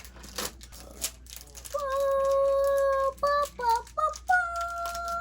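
Plastic toy packaging rattling and clicking as it is opened, then a child's voice singing a short run of long held notes, stepping up and down in pitch, for the last three seconds or so.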